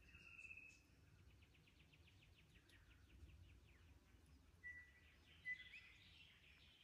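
Faint forest birdsong. There is a short whistled note at the start, then a rapid series of short, dry notes. Clear whistles with a quick upward slide come near the end, over a faint low background rumble.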